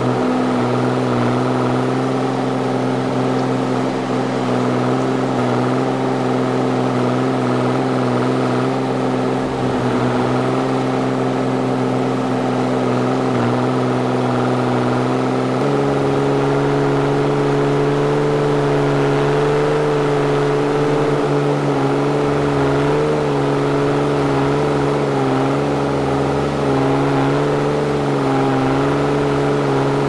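Diesel engine of a John Deere 1710 forwarder running steadily at low revs, its pitch wavering slightly as it works. About halfway through, the engine note changes to a new steady pitch.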